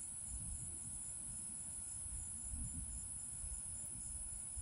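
Steady high-pitched insect trilling, with a low, uneven rumble of wind on the microphone underneath.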